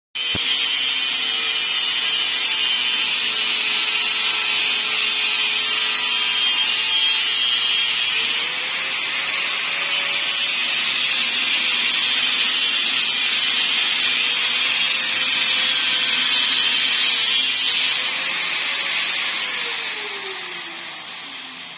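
Handheld angle grinder grinding metal: a loud, steady grinding hiss over the motor's whine, whose pitch wavers as it works. Near the end the grinder is switched off and winds down, its whine falling in pitch.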